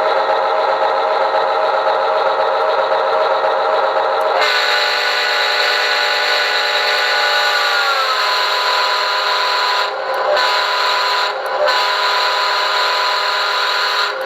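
Recorded diesel locomotive sound effects from a QSI Maxx Traxx model-train sound unit, played through a speaker. The engine runs steadily, then about four seconds in a multi-chime horn sounds a long chord that drops in pitch partway. The horn is broken by two brief gaps near the end.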